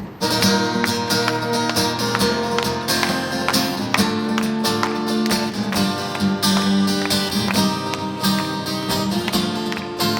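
Two guitars playing a song's instrumental intro live, plucked and strummed in a steady rhythm.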